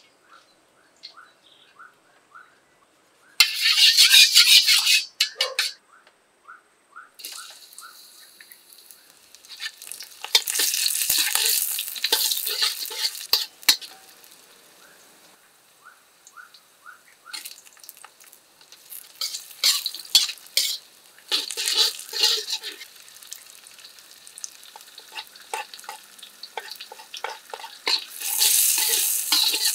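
Sliced onion and chopped chillies frying in hot oil in a steel wok, sizzling in loud bursts as they are tossed and stirred with a metal spatula, with quieter crackling between. The loudest bursts come a few seconds in, midway, and again near the end as the chillies go in.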